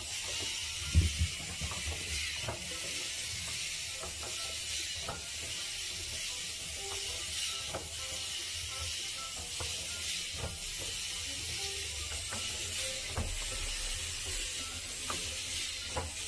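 K'Nex scorpion robot walking under its small electric motor: a steady high whir, with its plastic gears and legs clicking irregularly and one louder knock about a second in.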